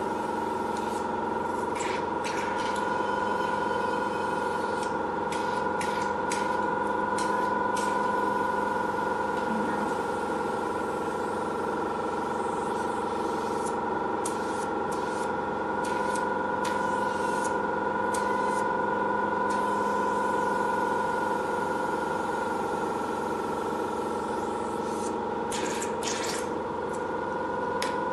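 Aqua facial hydrodermabrasion machine running with a steady hum of several constant pitches, from its pump. Its water-and-suction handpiece draws over the skin, and short wet clicks come in scattered clusters.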